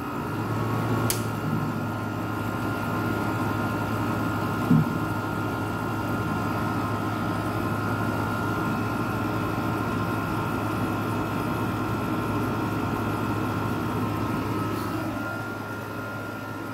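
GE window air conditioner running: a steady rush of its fan with a low hum and a thin high tone, growing louder within the first second. A single click about a second in and a short sharp sound near five seconds stand out over it.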